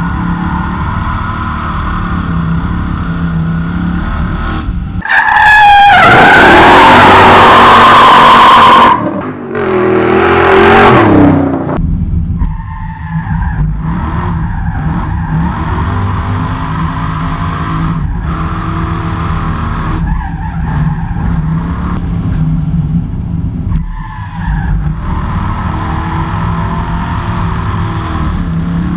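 Rally car's engine running hard up a mountain road, heard through an outside-mounted camera with wind rush. From about five to eleven seconds in the sound turns much louder and distorted.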